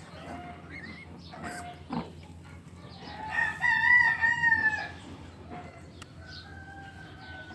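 A rooster crows once, a single long call about three seconds in, with shorter, fainter bird calls before and after it.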